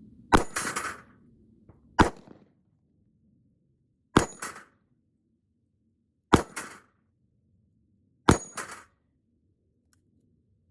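Five gunshots from a Ruger LCRx 9mm snub-nose revolver, a full five-round cylinder, fired about two seconds apart. Each is a sharp crack followed by a short echo.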